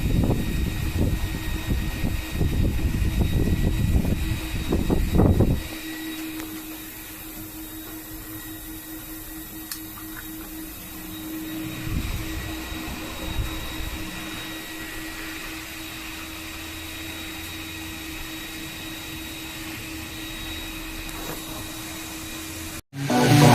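Loren Sid Tufão 50 cm six-blade wall fan running: a loud, low rush of moving air for the first five or so seconds, then it drops suddenly to a steady motor hum with a faint high whine.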